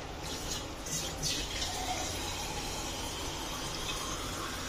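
Water being poured into an aluminium pot of chicken pieces and spices in oil: a steady pour that starts a moment in.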